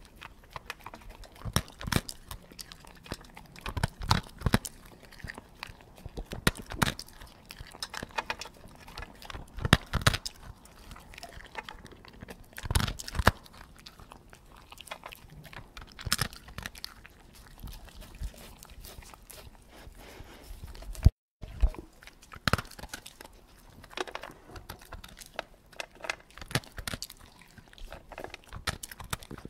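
A dog eating slowly from its food bowl, chewing with irregular crunches and clicks of its teeth. The sound cuts out for a moment about two-thirds of the way through.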